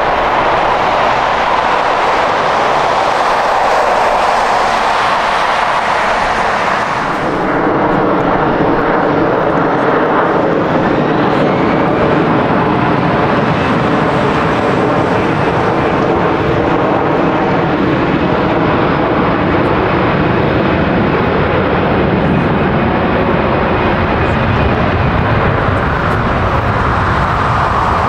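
A jet airliner's engines running loud and close, a continuous roar. About seven seconds in, the high hiss falls away and a steady hum of several engine tones carries on.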